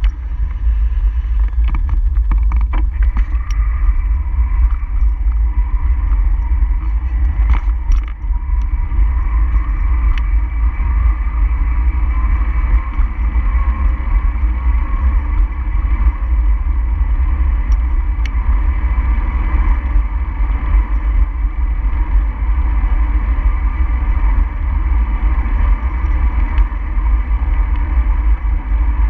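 Steady road and wind noise of travel along a road, with a heavy low rumble of wind on the microphone and a few faint clicks near the start and about eight seconds in.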